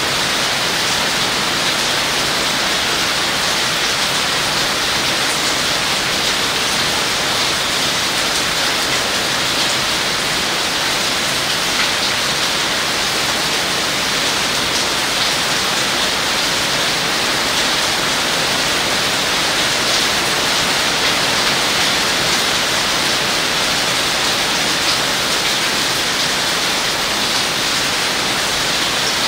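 Heavy rain pouring steadily onto leaves and grass, a dense, even hiss with faint scattered drop ticks.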